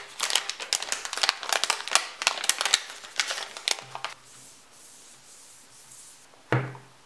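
Clear plastic wrapping crinkling and crackling as it is pulled off a phone box, held close to the microphone, for about four seconds, then quieter rustling and a single soft thump near the end.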